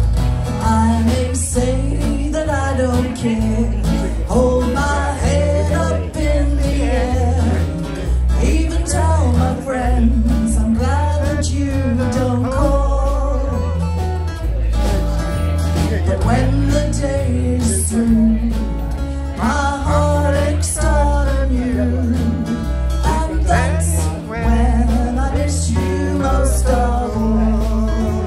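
A country band playing live: a woman sings lead over two acoustic guitars, bass guitar and drums, with the bass and kick drum keeping a steady beat.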